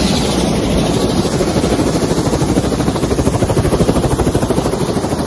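Helicopter running, its turbine and rotor giving a loud, steady noise with a rapid, even beat of the rotor blades.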